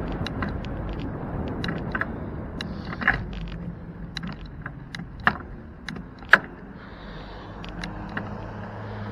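Bicycle riding along a street: a steady low rumble of wind and road noise, broken by irregular sharp rattling clicks as the bike and its camera jolt over the pavement, with three louder knocks.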